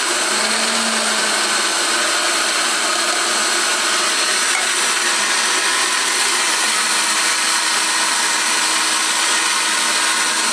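Britânia countertop blender's motor running steadily, blending condensed milk and cream.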